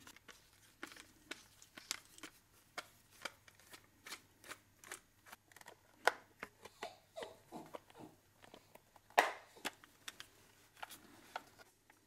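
Sharp plastic clicks and taps as a screwdriver pries the back plate off a Diagral wireless alarm keypad's casing, several a second, the loudest about nine seconds in.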